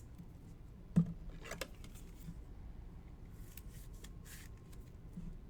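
Trading cards and their packaging being handled at a table: a sharp click about a second in, then a few brief scrapes and rustles.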